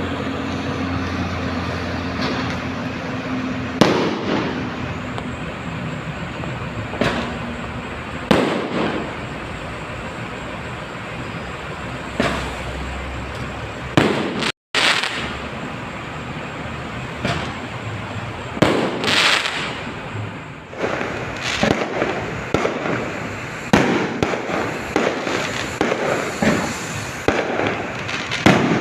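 A barrage of New Year fireworks: irregular sharp bangs and pops, some close together, over a continuous rumbling crackle of further explosions.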